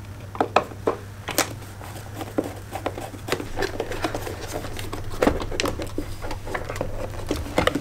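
Scattered plastic clicks and knocks from a BMW E30's engine-bay fuse box being taken apart: a screwdriver working at its screws, then the hard plastic top being rocked loose and lifted off its base. The sharpest knocks come about a second and a half in, about five seconds in, and near the end.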